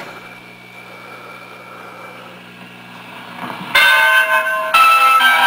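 The speaker of a 1948 Admiral television gives a low steady hum. About three and a half seconds in, loud bell-like chords of a programme's opening music start, with a second chord about a second later.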